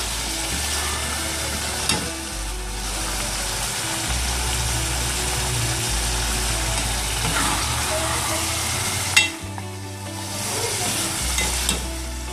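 Chicken curry with boiled white chickpeas sizzling in hot oil in a metal pot as a metal ladle stirs and fries it, the chickpeas being fried into the masala. A sharp knock about nine seconds in.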